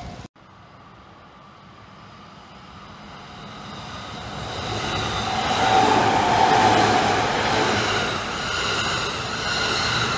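Takasaki Line electric train approaching and passing, its running noise growing steadily louder over about five seconds and then staying loud, with a few steady whining tones over the rumble.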